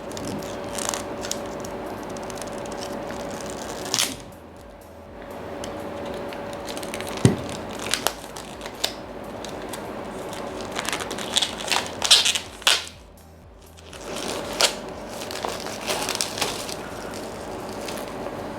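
Plastic wrapping being crinkled and torn off a new hardcover notebook: irregular crackling and ripping, with two short lulls.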